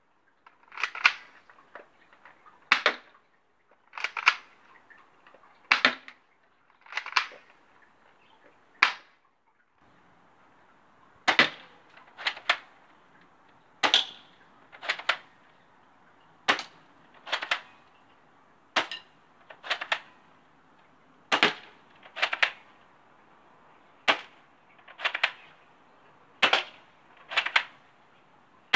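BB guns firing single shots, each a sharp snap, about twenty in all at roughly one a second, with a short pause about nine to eleven seconds in.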